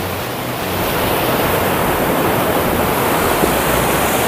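Steady rush of a mountain waterfall falling 50–100 feet over rocks, heard from the top of the fall.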